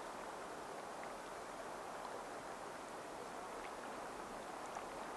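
A steady, even rushing noise of outdoor ambience with a few faint scattered ticks.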